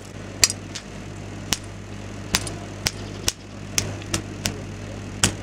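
Popcorn kernels popping in a bag heated by a bare microwave-oven magnetron: sharp, irregular pops, about ten of them, over a steady low hum from the transformer that powers the magnetron.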